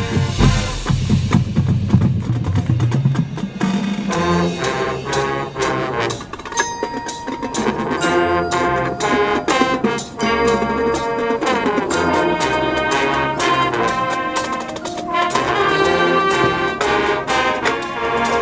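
High school marching band playing its competition show live: brass section sounding chords and melody over drums and percussion, with frequent sharp percussion hits.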